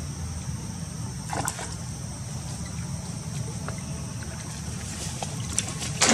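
Water splashing and trickling as a macaque wades and swims in a pond, over a steady low rumble and a steady high hiss. A short splash comes about a second and a half in, and a louder splash right at the end.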